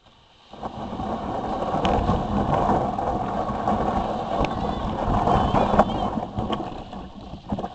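Loud, steady rushing noise of water and wind around a sail kayak under way, with a few sharp knocks and splashes. It starts suddenly about half a second in.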